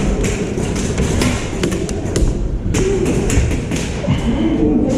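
Irregular sharp taps and knocks over a steady low rumble: the clatter of an indoor airsoft game, with BBs striking walls and props and gear knocking about.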